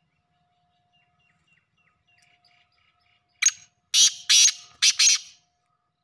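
Black francolin (kala teetar) calling: a loud, harsh call of five grating notes within about two seconds, the last four in two quick pairs. Faint chirps come before it.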